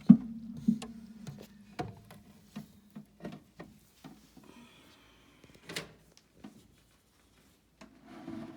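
A series of light knocks and clicks from handling, the loudest right at the start with a brief low hum after it, and a sharp click a little before six seconds.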